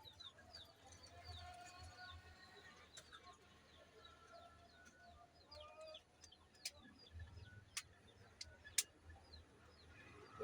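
Faint background birdsong: many short, quick chirps and some longer call notes, with three sharp clicks in the second half.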